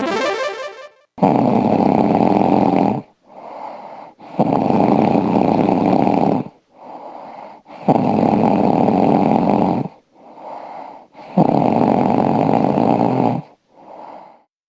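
A woman snoring heavily in a steady breathing rhythm: four loud, rasping snores about two seconds each, each followed by a shorter, much quieter breath.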